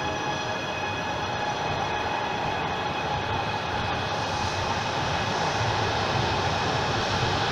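Electric double-deck commuter train running past along the platform of an underground station. A steady high-pitched electrical whine fades out over the first half, while the rumble of the wheels grows louder toward the end.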